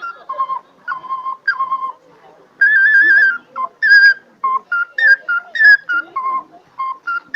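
A handmade pre-Hispanic-style flute playing an improvised melody of short, clear, whistly notes that hop between a few pitches. About three seconds in it holds one longer, warbling note.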